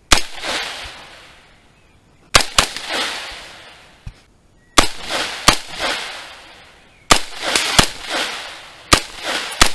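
AR-15 carbine firing, about ten shots mostly in quick pairs (double taps) a couple of seconds apart, each shot ringing out with an echo that dies away over about a second.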